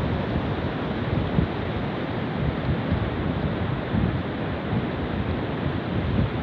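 Flowing water rushing steadily, with gusts of wind buffeting the microphone.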